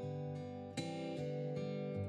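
Soft instrumental background music on acoustic guitar: slow, sustained plucked chords, with a new chord struck about three-quarters of a second in.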